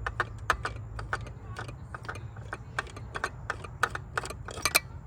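Hand ratchet clicking in quick, irregular runs of sharp ticks as a bolt is worked loose.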